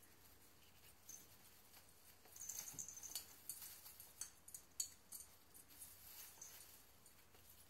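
Faint rustling and crackling of artificial Christmas tree branches as a black cat climbs up inside the tree: a run of quick light ticks and scratches from about two to six and a half seconds in.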